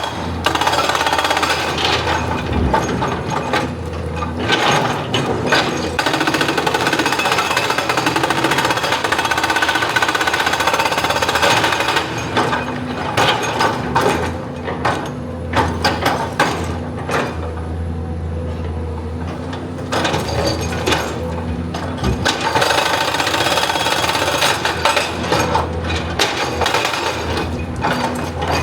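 Excavator at work: its diesel engine running steadily under a dense, continuous metallic hammering and clattering, with short lulls around the middle.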